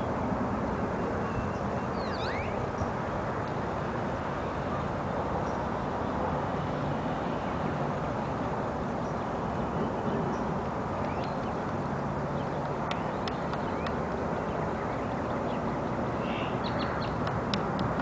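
A woodpecker pecking at a wooden utility pole: scattered light taps, mostly in the second half, over steady background noise. A brief bird call about two seconds in.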